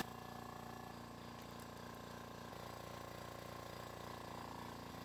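Faint steady mechanical hum with several even tones: a machine running at a constant speed.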